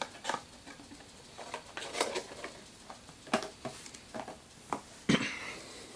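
Scattered small rustles and clicks of packaging being handled, spaced a second or so apart, with a sharper knock about five seconds in.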